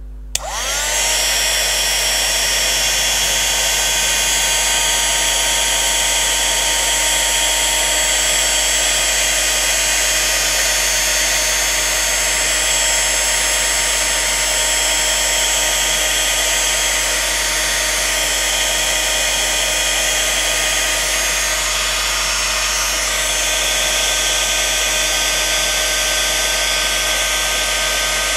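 Hand-held embossing heat tool switching on, its fan rising in pitch over about the first second, then running steadily with a high whine while it melts embossing powder.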